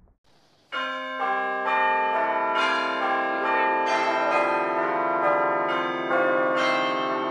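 Bells ringing: a run of struck bell tones starting just under a second in, a new strike about every half second, each ringing on and overlapping the ones before.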